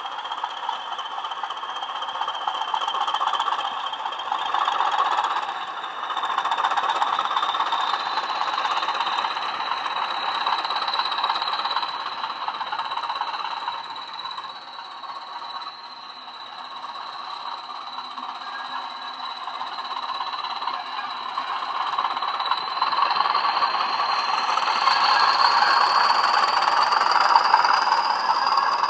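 DCC sound from two Bachmann OO gauge Class 20 model locomotives, each with a LokSound 5 decoder and a pair of 20x20x7 mm megabass speakers, playing a Class 20 English Electric diesel engine running under power. A steady high turbocharger whistle sits over the engine and rises a little in pitch near the end. The sound dips in the middle and swells again towards the end.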